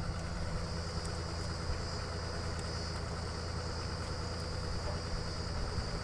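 Truck-mounted borewell drilling rig running steadily: a low, even engine hum with a steady high whine above it.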